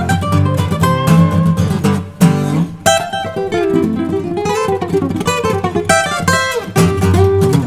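Two steel-string acoustic guitars playing a fingerstyle duet, plucked melody over bass notes. A brief break about two seconds in is followed by sharp strummed accents; the melody then goes on with little bass under it until near the end.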